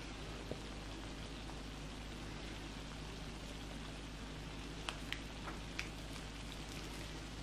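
Shrimp in a spicy red sauce sizzling steadily on a hot griddle pan, with a few sharper pops and crackles about five seconds in.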